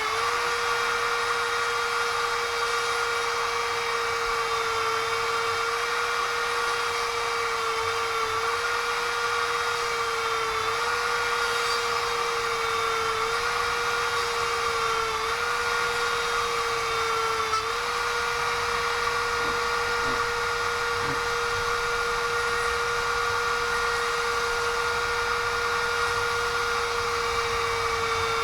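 Small electric drill running continuously with a steady high whine, its pitch dipping briefly about five times as the bit bites while drilling tiny holes.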